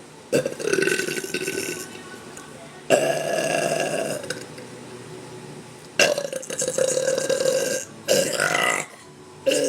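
A woman burping: four long, drawn-out burps one after another, the second lasting about two seconds, with another starting near the end.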